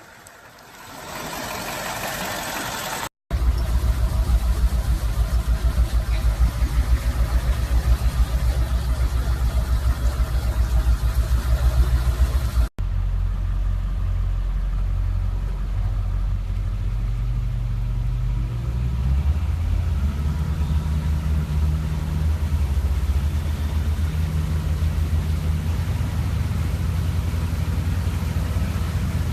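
Diesel pickup truck engines running in separate spliced clips: a loud, low, pulsing engine rumble after an abrupt cut about three seconds in, then after another cut about halfway through, a steadier engine whose pitch steps up and down.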